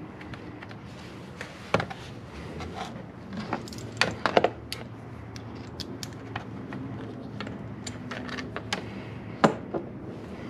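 Scattered sharp metallic clicks and clinks of hand tools and a small bolt as a part is bolted back in by hand, with a cluster of louder clicks about 4 seconds in and one loud click near the end.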